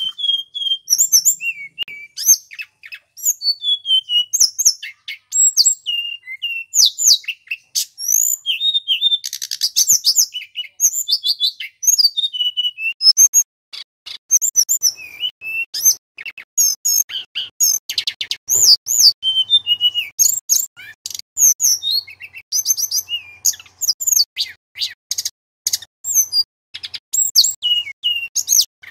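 Male tledekan gunung, a blue flycatcher, singing loudly: a fast, varied string of high-pitched whistles and sharp chirps with hardly a pause.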